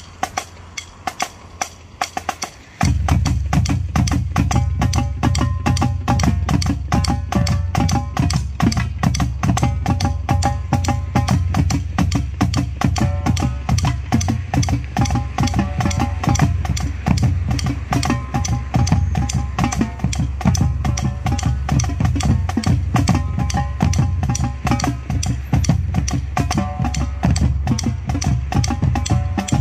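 Marching drumline of snare, tenor and bass drums playing a cadence. Sparse, sharp stick clicks for the first few seconds, then the full line comes in about three seconds in with a dense, fast run of strokes and the weight of the bass drums underneath.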